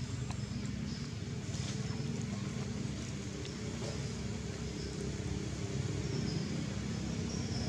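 A steady low engine-like drone, as of a motor running at a constant speed, with a few faint short high chirps over it.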